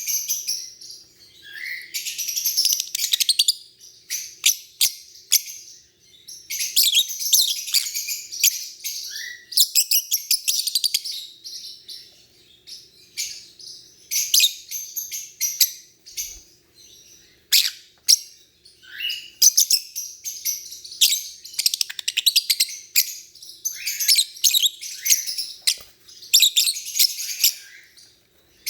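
Lovebirds chirping in bouts of rapid, high-pitched chatter a few seconds long, with short pauses between bouts.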